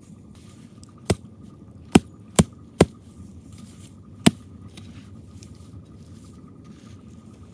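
Five sharp knocks or cracks over a low steady background: one about a second in, three close together around two to three seconds in, and a last one a little after four seconds.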